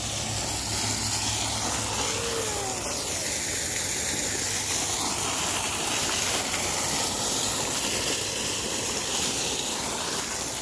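Sulphur-water fountain jet splashing steadily into a stone basin: a constant hissing rush of falling water.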